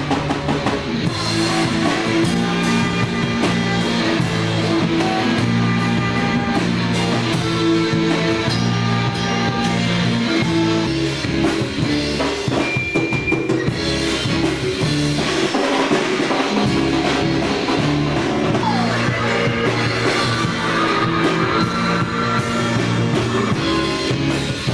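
Rock music with a drum kit, guitar and singing, played loud and steady throughout.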